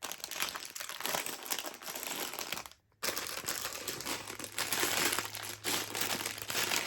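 Plastic bags of Lego bricks crinkling as they are handled, with a short break about three seconds in.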